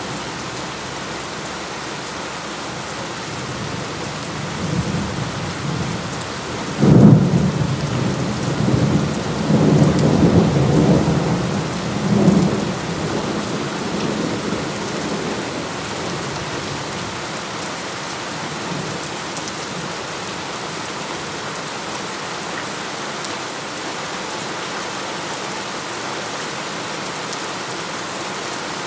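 Heavy rain falling steadily. About seven seconds in, a sudden clap of thunder rolls on in low rumbles for several seconds and then fades back under the rain.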